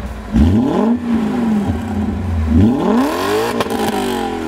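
Synthetic V8 engine sound played through a pair of Eberspächer active-exhaust sound-generator canisters, being revved: a quick blip just after the start, then a longer rev climbing to a peak a little past halfway and slowly falling back to idle.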